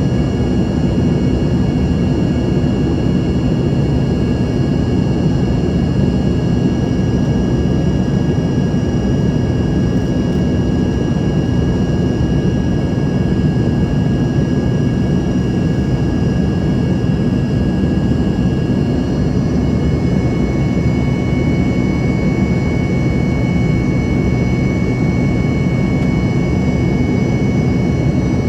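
Cabin noise of an Embraer ERJ-145: a steady rush from its rear-mounted Rolls-Royce AE 3007 turbofans, with thin high whining tones above it. About two-thirds of the way through, the whine steps to a lower pitch as the engine setting changes.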